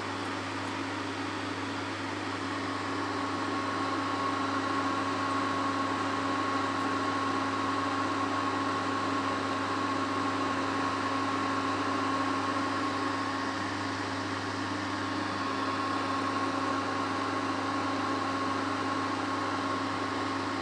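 Prestige induction cooktop running with a steel bowl of water on it: its cooling fan whirs steadily under a low electrical hum, and a faint high whine joins about two seconds in. The sound of the repaired cooker heating again.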